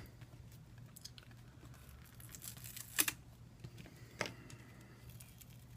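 Small clicks and crackling of a phone's cracked front glass being pried off its adhesive with plastic guitar picks, with two sharper clicks about three and four seconds in.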